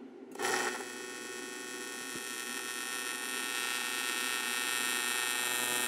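AC TIG welding arc on aluminum, struck about a third of a second in and then holding a steady electric buzz that grows slowly louder. The arc runs on a freshly reground tungsten after the old tip was contaminated with aluminum.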